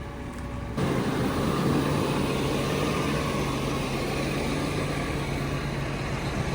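Heavy engine running steadily under a continuous rushing noise. It comes in abruptly under a second in.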